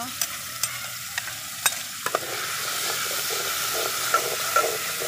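Spiced marinade masala sizzling in hot oil in a kadai while a spoon stirs it, clicking and scraping against the pan now and then. The sizzle grows louder about two seconds in.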